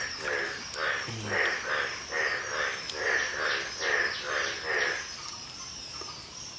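A rhythmic series of short croak-like animal calls, two or three a second, which stop about five seconds in, over a steady high insect drone.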